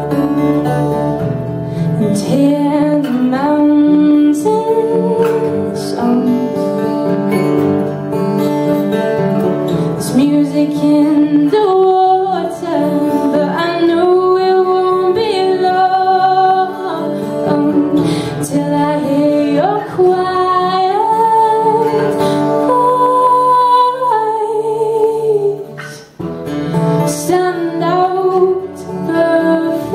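A woman singing a folk song, accompanied by two acoustic guitars played together. The voice comes in about two seconds in, over the guitars.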